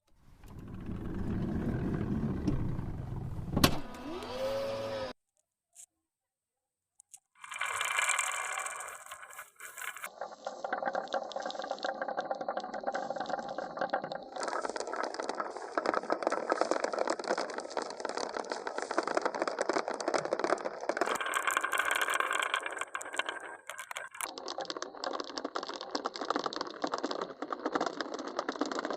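Marbles rolling and rattling along wooden zigzag slopes and tracks, a dense clatter that changes abruptly several times, with about two seconds of silence shortly after the start.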